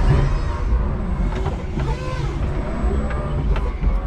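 Electric forklift truck driving and turning: its drive motor whines, the pitch rising and falling, over a steady low rumble, with a few sharp clicks and knocks from the truck.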